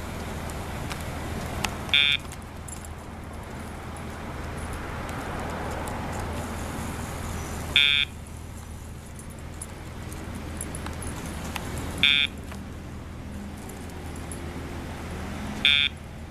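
Four short electronic buzzes, each about a quarter second long and spaced roughly four to six seconds apart, from a Dogtra remote training collar system. They are cues to the dog while a heel is being shaped. A steady low hum runs underneath.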